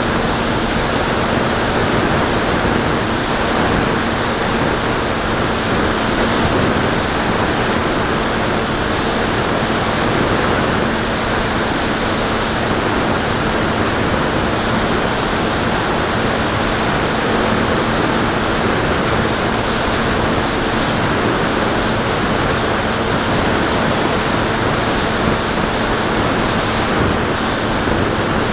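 Steady rush of wind over an onboard camera's microphone on a Bixler 2 RC foam plane in flight, with the steady hum of its electric motor and propeller underneath.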